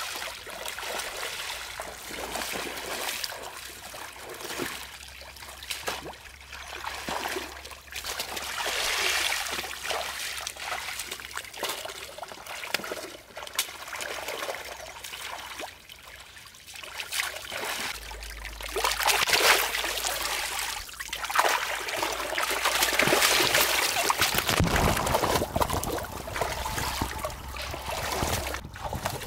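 Muddy pond water splashing and trickling, with irregular sloshing and splashes, as in hauling fish from a drained mud pond. The splashing grows louder and busier in the second half.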